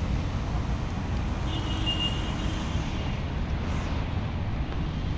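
Steady road traffic noise, a low rumble of passing vehicles, with a faint high-pitched tone for a second or so about two seconds in.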